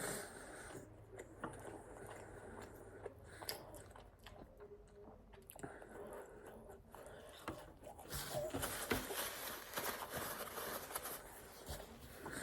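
A person biting and chewing pizza, with many small wet clicks of the mouth. It gets busier and louder about two-thirds of the way in.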